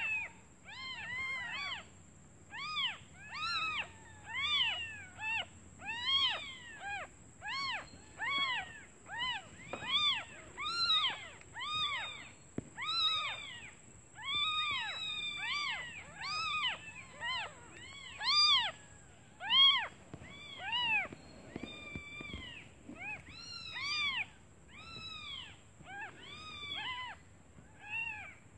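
Newborn kittens mewing over and over, several at once, short high calls that rise and fall in pitch. They are calling for their mother out of hunger.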